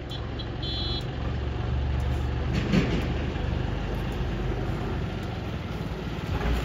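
Heavy vehicle's engine running steadily with a low rumble, with a few short high-pitched beeps in the first second.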